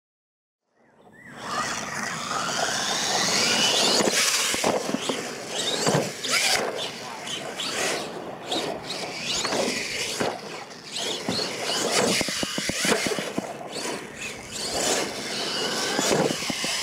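Radio-controlled monster truck's motor and drivetrain whining, rising and falling in pitch as the throttle is worked, with knocks and crunches of the tyres on dirt. It fades in after about a second of silence.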